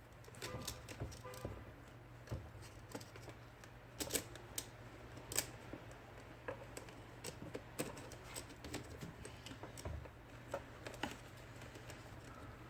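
Irregular light clicks and ticks from the mechanism of an IBM Selectric II typewriter being handled during a return and tab cable repair, over a steady low hum.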